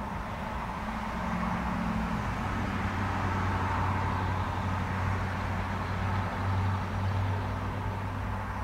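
Road traffic passing: a steady rush with a low engine hum that grows louder through the middle and eases near the end.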